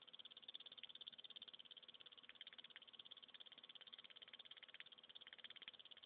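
Relay from a microwave oven wired as a buzzer, its contacts chattering in a faint, fast, even stream of clicks as it makes and breaks current through the microwave oven transformer's primary to drive a spark gap. A few louder clicks stand out.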